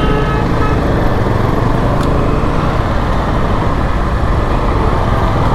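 KTM single-cylinder sport motorcycle engine running as the bike rides slowly in city traffic, with steady road and wind noise and surrounding traffic.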